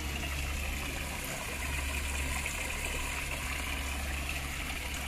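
Water from a decorative rock-waterfall fountain splashing steadily into its pond, with a steady low hum underneath.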